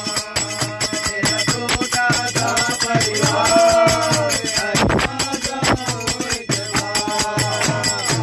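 Men singing a Krishna bhajan in chorus, with small brass hand cymbals (manjira) and a frame drum keeping a fast, steady beat. The voices come in strongest about halfway through and again near the end.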